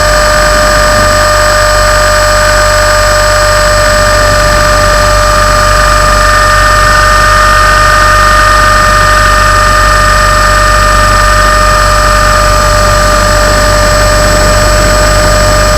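Tarot 450 electric RC helicopter heard from a camera mounted on it: a loud, steady high whine of the motor and drive gears over the rush of the rotors, holding one pitch.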